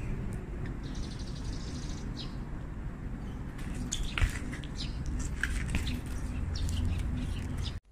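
BMX bike riding on concrete: tyres rolling over a steady low rumble, with a sharp knock about four seconds in as the bike lands a bunny hop. Short bird chirps sound now and then.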